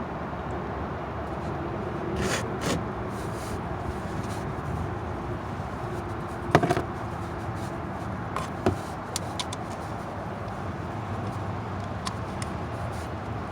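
Steady outdoor background noise, like passing road traffic, broken by a few sharp knocks or clicks, the loudest about six and a half seconds in.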